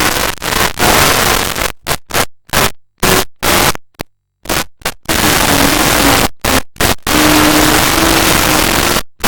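Loud, harsh static-like noise across the whole range, cut into a quick run of short bursts with dead-silent gaps between them for a few seconds in the middle, then running steadily again.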